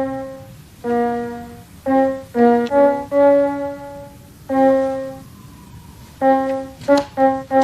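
Piano played slowly: a simple melody of single notes, each struck and left to ring and fade before the next.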